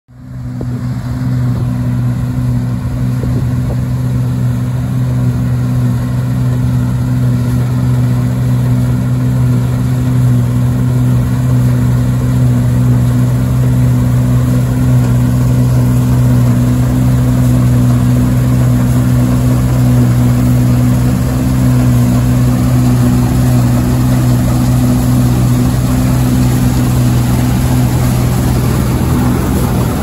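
New Holland TX68 Plus combine harvester working alongside a grain tractor while the combine unloads into the trailer. The engines make a loud, steady, low drone with a deep hum that fades in over the first second.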